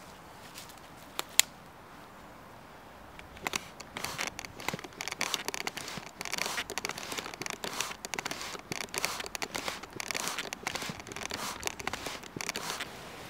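Wood charcoal catching fire, crackling and popping rapidly and irregularly from about three and a half seconds in, after a single sharp click about a second in.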